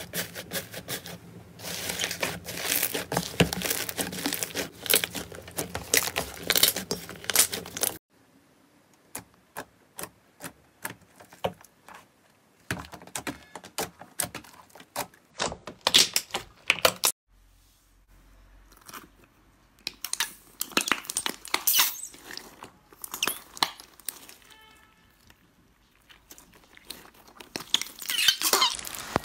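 Hands pressing and squeezing slime. For about eight seconds there is dense crackling, then a quieter stretch of scattered pops and clicks, with loud crackling again near the end.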